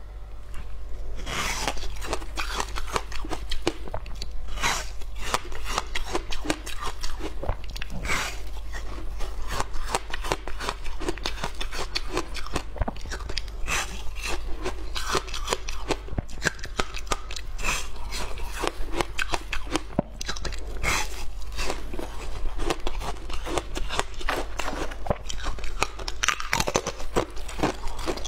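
A slab of frozen flavoured ice being bitten and chewed close to the microphone: dense crunching and crackling throughout, with louder bites at irregular moments.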